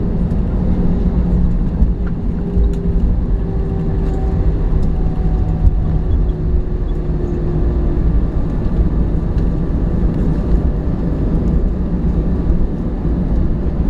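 Cabin noise inside an Airbus A321: a loud, steady low rumble of the jet engines and rushing air, with the engine tones slowly falling in pitch.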